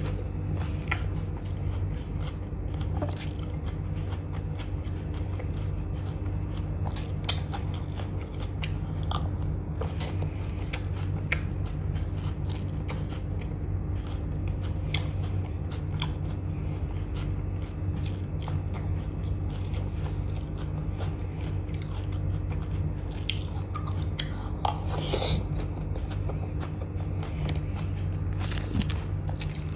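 Close-miked chewing and crunching of dahi puri, with short clicks of cutlery against a foil-lined plate, over a steady low hum.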